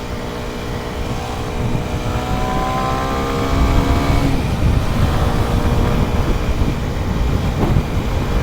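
Kawasaki Z125's 125cc single-cylinder engine pulling under throttle, its pitch rising for a few seconds, then running on at speed. Heavy wind rumble on the microphone.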